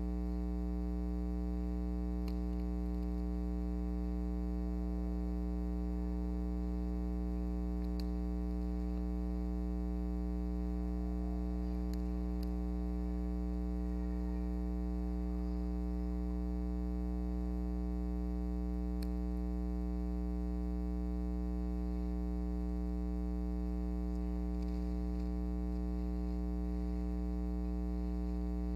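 Steady electrical mains hum with a stack of overtones, unchanging throughout, with a few faint clicks.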